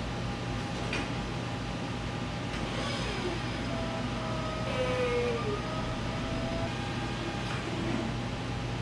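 Electric scissor lift running with a steady low hum, with a few drawn-out squeaks gliding in pitch partway through.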